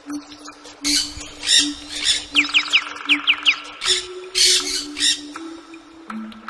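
Birds squawking: harsh, scratchy calls repeated about once a second, with a quick run of short descending chirps in the middle.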